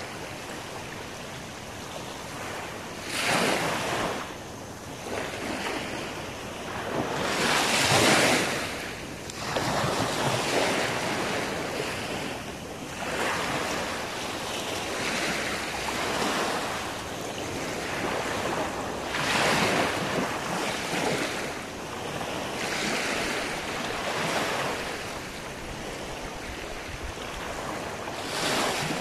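Small waves breaking and washing up a sandy beach: a steady hiss of surf that swells and falls away irregularly, the loudest surge about eight seconds in.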